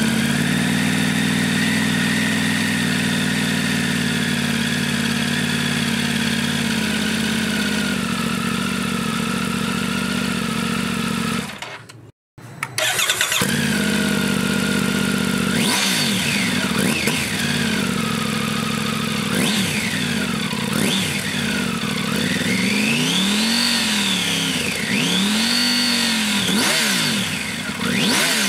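Triumph Tiger 900's three-cylinder engine running through a Scorpion Serket slip-on exhaust with its baffle fitted. For the first eleven seconds or so it holds a steady cold-start idle that settles slightly lower. After a cut it idles hot, and the throttle is then blipped several times, each rev rising and falling, with the last two the highest.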